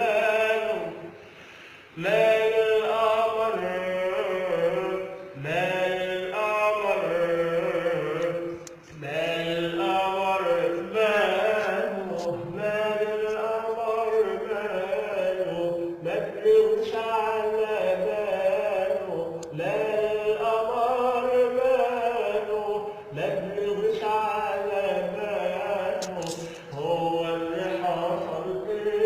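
Man singing an Arabic song in long, ornamented vocal phrases a few seconds each, with a brief break about a second in.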